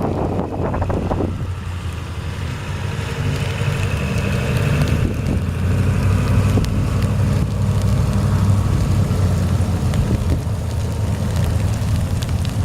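A vehicle engine running steadily: a low, continuous hum under a layer of noise.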